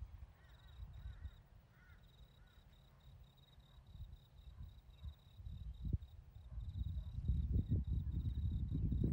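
Outdoor ambience: a bird chirps four times early on over a steady high insect drone. In the second half, a low rumbling noise on the microphone swells and becomes the loudest sound.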